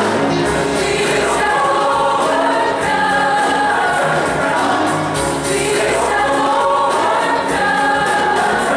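A large youth choir singing a gospel-style song in full chords, many voices together, over steady low accompaniment.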